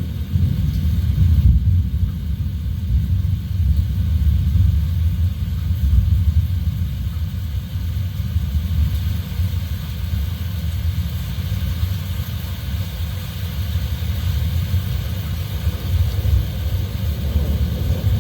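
Heavy rain and wind: a continuous hiss of rain over a deep, gusting wind rumble that swells and eases.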